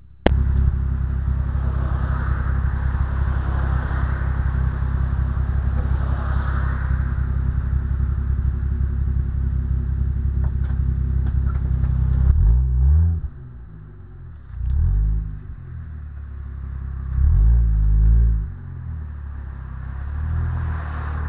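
Toyota Supra engine with its stock exhaust, idling steadily, then revved in several short throttle blips in the second half, each rising and falling back to idle.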